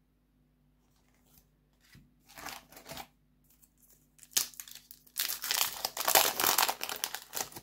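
Foil wrapper of a Yu-Gi-Oh! booster pack crinkling as it is handled, in a few short bursts a couple of seconds in. From about five seconds in comes a long, loud stretch of crinkling and tearing as the pack is ripped open.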